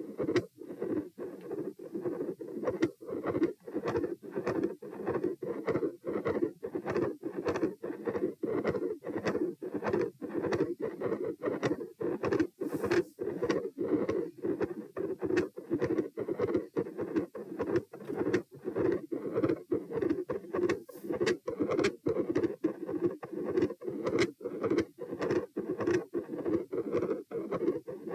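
Heart sounds through a stethoscope at the pulmonic area: a rapid, regular heartbeat of sharp valve-closure clicks with a steady rushing murmur filling the gaps between them, the intermittent machinery-like murmur and loud second heart sound.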